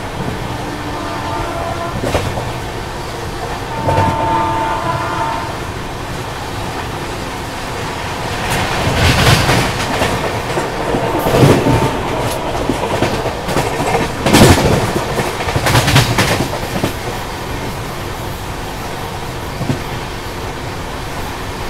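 Double-decker express train running, heard by the coach door: a steady rumble of wheels on the rails with clickety-clack over the joints. A brief high tone sounds about four seconds in, and the middle stretch grows louder with several heavy clatters before it settles back.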